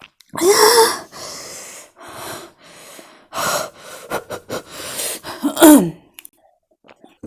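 A woman gasping and wheezing, a series of sharp breaths through the mouth, two of them voiced, the loudest about half a second in and just before six seconds in. This is the hard breathing of a mouth burning from very spicy noodles. It falls quiet for the last second.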